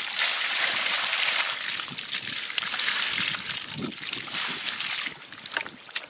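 Water poured from a bucket, splashing steadily onto wet mud, grass and fish for about five seconds, then tapering off near the end.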